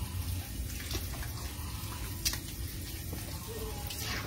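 Hands scrubbing and lathering a wet dog's coat: a soft, steady wet crackle, with a sharp click about halfway through.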